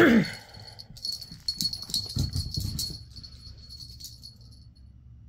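A chihuahua gives one short, loud bark that drops steeply in pitch. For about two seconds after that, the metal tags and charm on her harness jingle as she moves about.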